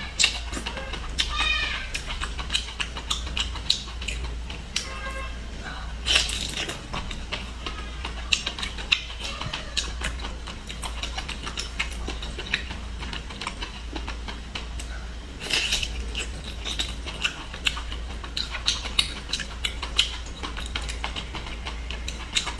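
Close-miked eating sounds: wet chewing and lip smacking with many irregular sharp clicks, over a steady low hum.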